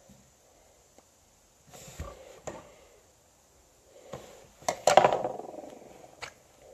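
Small clicks and clatter of cosmetics being handled, with a lipstick tube being capped and opened. The loudest clatter comes about five seconds in.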